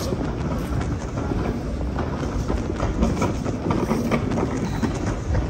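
Walking ambience on stone paving: irregular footstep clicks over a steady low rumble of the moving handheld microphone.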